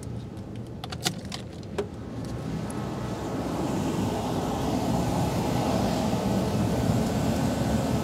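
Steady low rumbling background noise that swells about three seconds in and then holds, with a few light clicks in the first two seconds.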